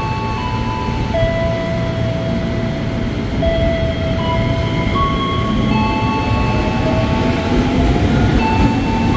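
JR 205 series KRL electric commuter train rolling past along the platform: a steady rumble of the cars, overlaid by several electric whines from the train's traction equipment that hold a pitch for a second or two and then step to another. Some of the whines glide slightly upward in the second half.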